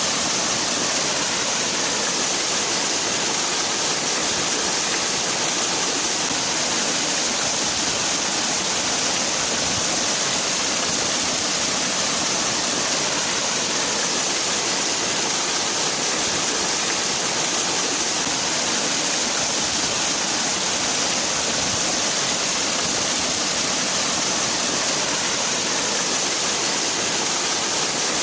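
Waterfall: water falling steadily with an even, unbroken hiss, brightest in the high range.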